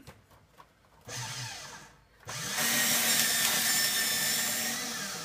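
Electric paper shredder running as it pulls in and shreds a sheet of paper, starting a little over two seconds in with a steady whirring hum.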